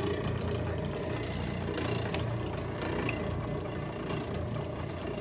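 Sheldon 10-inch by 20-inch engine lathe running under power, its motor and headstock gearing giving a steady mechanical hum with a few faint ticks.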